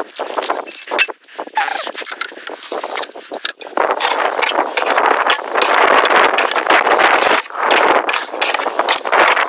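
Concrete being mixed in a wheelbarrow with a long-handled tool: scattered scrapes at first, then continuous gritty scraping strokes from about four seconds in, with a brief break near the end.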